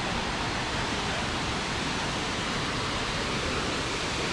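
Steady, even rush of Burgess Falls, where the river plunges more than 130 feet into a gorge, heard close to its base.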